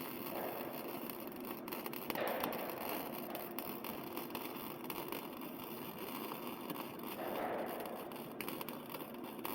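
MIG welding arc crackling steadily: a dense, continuous run of tiny clicks as the wire feeds into the weld.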